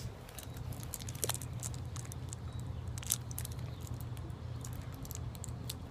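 Small plastic candy wrapper crinkling and crackling in a run of quick, irregular clicks as it is fiddled with and picked open by hand.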